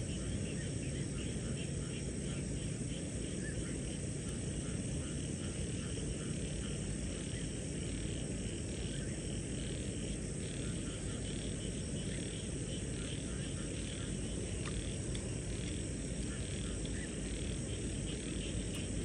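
Evening chorus of crickets and frogs: a steady high insect drone with short calls repeating throughout, over a steady low rumble.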